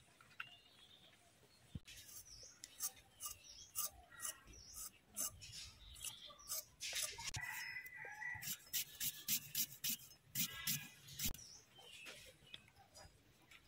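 Repeated short scraping strokes, about three a second, coming faster and closer together in the middle.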